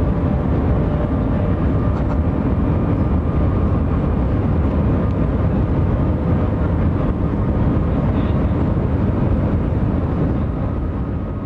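Cabin noise of a Shanghai Maglev (Transrapid) car running at speed: a steady, heavy low rumble of air and body vibration with a faint steady whine above it, heard from inside the car at a window seat.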